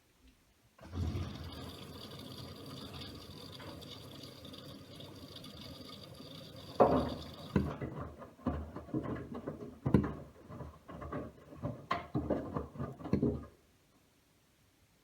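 Miele W1 washing machine drawing in water through its inlet valve for about seven seconds, a steady rushing fill. Then come irregular sloshing splashes and thumps from the drum and wet laundry, which stop about 13 seconds in.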